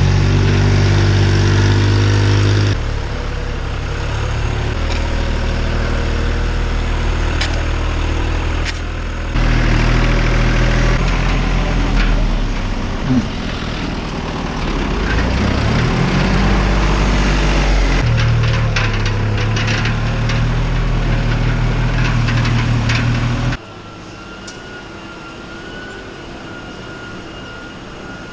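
Diesel tractor engines running under load in a series of short cuts, one revving up and back down about halfway through. Near the end a quieter engine runs with a steady high whine over it.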